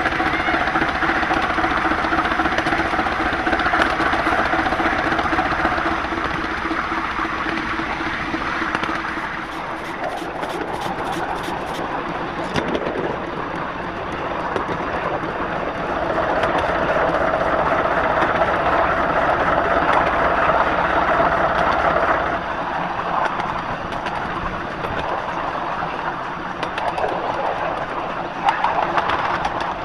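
Miniature steam locomotive running close by, with a steady hiss of steam and the mechanical noise of its motion. There is a louder stretch in the middle, and a quick run of clicks about ten seconds in.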